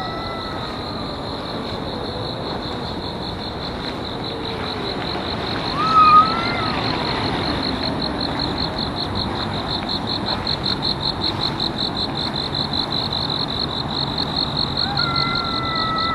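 Two cats in a standoff, growling in long low wavering tones, with a short rising-and-falling yowl about six seconds in and yowling starting again near the end. A steady high-pitched insect chorus pulses about five times a second underneath.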